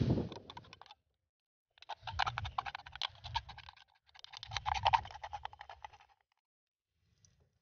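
Thin aluminium soda can crinkling and crackling as fingers bend and tear it open along cut slits, in two bouts of about two seconds each.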